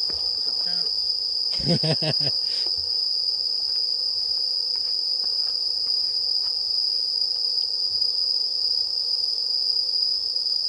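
A steady, high-pitched chorus of night-singing insects, unbroken throughout, with a brief low sound about two seconds in.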